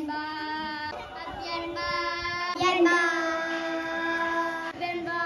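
A child singing alone, holding long, steady notes with short breaks between them.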